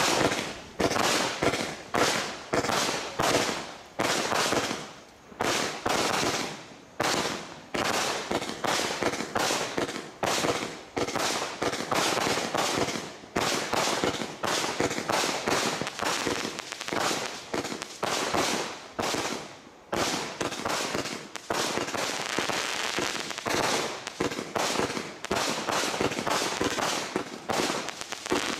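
Bright Star 'Satanic Desecration' 190-shot single-ignition firework barrage cake firing a rapid sequence of shots, about two a second, each launch followed by its burst in the air. About two-thirds of the way through the shots crowd together into a near-continuous stretch.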